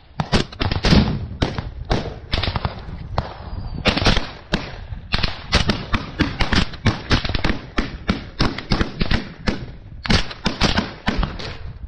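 Small-arms rifle fire: many sharp shots in quick, irregular succession, thickest in the middle and again near the end.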